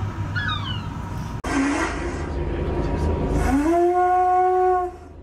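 A conch shell blown as a horn: one long, steady note that slides up into pitch about three and a half seconds in, is held for about a second and a half, then stops abruptly. A low, steady hum runs underneath.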